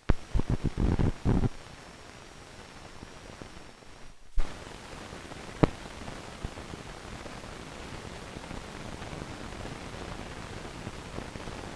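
Old optical film soundtrack at the tail of the reel: steady hiss with a burst of loud crackling pops in the first second and a half, then two single sharp clicks a little over a second apart.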